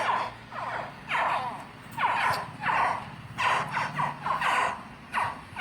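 Baby Cuban crocodiles calling: a run of short chirping calls, roughly one or two a second and some overlapping, the 'pew' likened to a laser gun. A steady low hum runs underneath.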